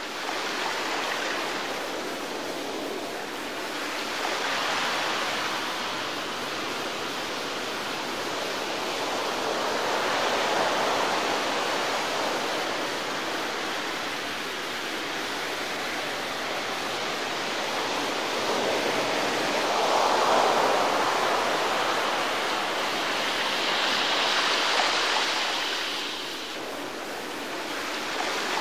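Water rushing and splashing along the hull of a moving motorboat, a steady hiss that swells and eases every few seconds.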